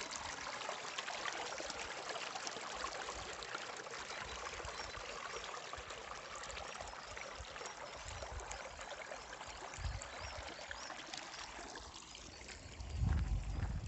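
Water running and trickling steadily along a narrow stone-lined irrigation channel, fading away after about twelve seconds. A louder low thump near the end.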